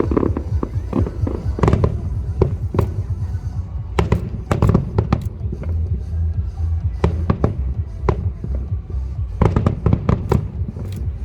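Aerial fireworks bursting in a rapid barrage of sharp bangs that come in clusters and fall away, over background music.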